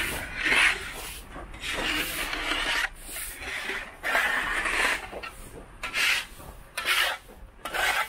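Snow shovels scraping packed snow across a paved sidewalk: repeated rasping scrapes, each lasting half a second to a second, coming at irregular intervals.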